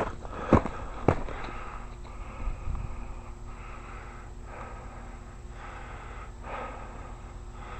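Footsteps crunching on ice-crusted snow, three steps in the first second or so, then they stop. A faint steady low hum and soft rustling go on after the steps stop.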